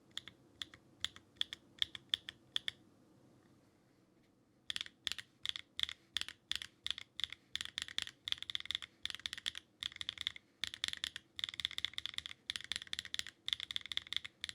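Mechanical keyboard with HMX Hydra tactile switches in a Neo65 Cu being typed on: separate key presses at first, a pause of about two seconds, then fast continuous typing.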